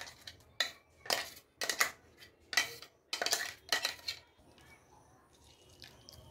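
Steel spoon scraping and clinking inside a stainless-steel mixer-grinder jar while scooping out ground chutney: a quick series of about eight sharp metallic scrapes that stops about four seconds in.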